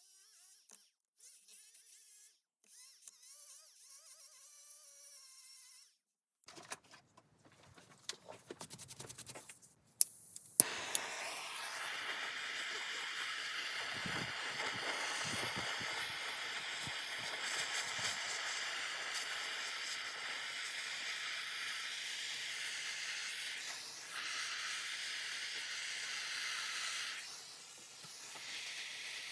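Gas torch (Lenk LPT-200) being lit: a run of small clicks and two sharp snaps, then the flame hissing steadily, dropping briefly twice near the end.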